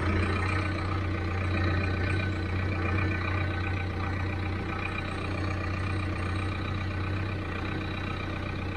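A farm vehicle's engine running steadily with a deep, even hum.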